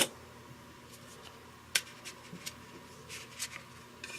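Light handling noises of a cine lens turned over in the hands: a few sharp clicks and some soft rubbing.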